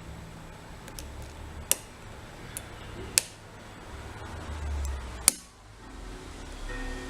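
Sharp clicks of lock picks working a six-pin Gege cylinder lock: five separate clicks, spaced unevenly over several seconds, over a low hum. Faint music starts near the end.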